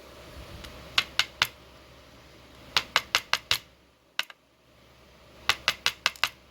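Quick bursts of light, sharp clicks from small metal lock parts being handled: about three, then five, a single click, then about six in quick succession.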